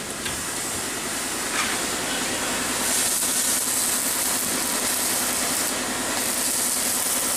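Stick (arc) welding on steel plate: the steady crackling hiss of the arc as a 3.2 mm electrode burns, a little brighter from about three seconds in.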